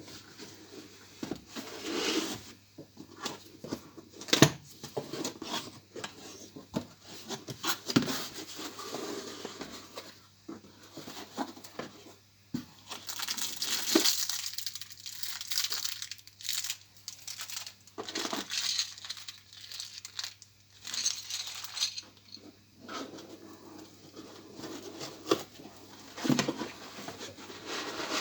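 Irregular rustling and crinkling with scattered sharp knocks and clicks, as of objects being handled.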